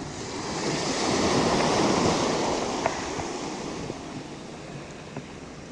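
Shallow ocean surf washing in around the wader: a wave rushes up, loudest about two seconds in, then the fizzing foam slowly fades away.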